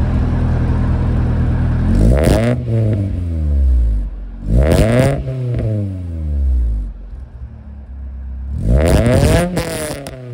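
Honda Civic (1996–2000) engine idling through an aftermarket muffler with a large polished tip, heard close to the tailpipe. About two seconds in it is revved and falls back to idle, again about halfway through, and near the end with a quick double blip.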